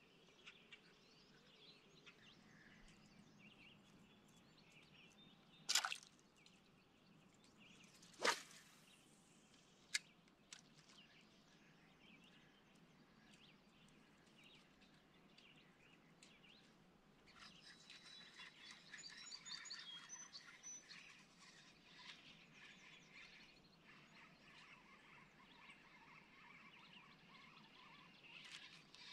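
Quiet lakeshore ambience near silence, with faint bird chirps. Three sharp clicks or splashes stand out, about six, eight and ten seconds in, and a busier few seconds of chirping come about twenty seconds in.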